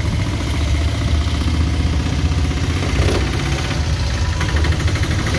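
Engine of a small open goods vehicle running steadily as it drives along, heard from its open cargo bed as a steady low rumble.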